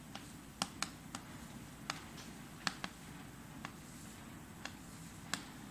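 Chalk writing on a blackboard: faint, irregular sharp clicks and taps as the chalk strikes and lifts off the board, about a dozen in a few seconds, over a low steady room hum.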